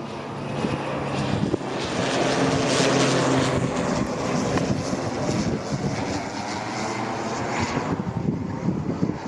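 Propeller airplane flying past, its engine drone growing louder over the first three seconds and then slowly easing off.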